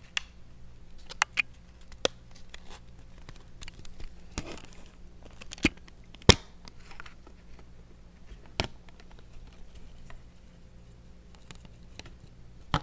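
Light handling noises of a CPU and motherboard being worked on for socket installation: scattered sharp clicks and taps, several seconds apart, over a faint steady low hum.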